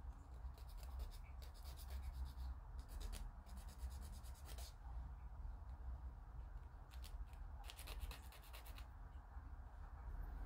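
A small hand file rasping on a plastic model kit part in quick back-and-forth strokes, in several short runs with a longer pause in the middle.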